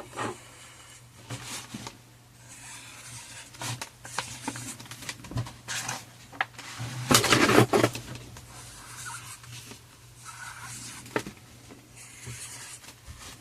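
Intermittent rustling, rubbing and light taps from handling trading cards and their packaging, loudest for about a second around seven seconds in, over a low steady hum.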